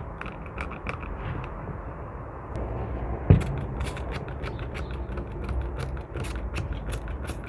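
Plastic trigger spray bottle squeezed again and again, a quick series of short spritzes misting water onto the soil of potted cuttings. One louder knock about three seconds in.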